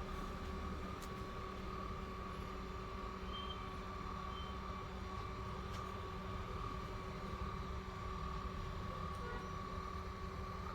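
Steady electrical hum with a constant thin high whine, as from running workshop equipment, and a few faint ticks.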